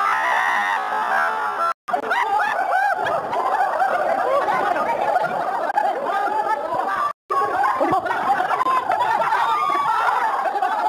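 A group of people laughing and chattering over one another, with two brief drops to silence, about two seconds in and about seven seconds in.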